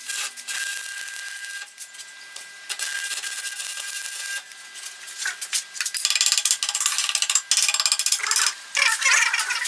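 Electric arc welding on old scrap iron: a loud crackling sizzle that breaks off and restarts a few times.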